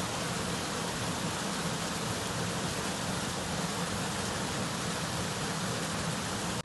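Water of a cascade rushing steadily, an even hiss of falling and flowing water that cuts off suddenly at the end.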